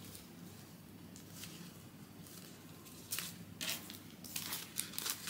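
Australian polymer banknotes being flicked and shuffled between the fingers as cash is counted by hand: short, crisp rustles, a few at first and more often in the second half, over a faint steady room hum.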